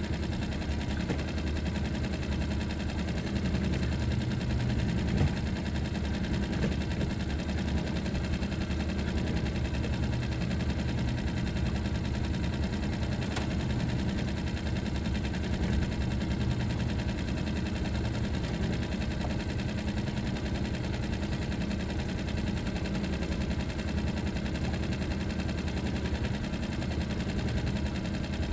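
Small outboard motor running steadily under way, a dense, rapid mechanical pulsing at an even level.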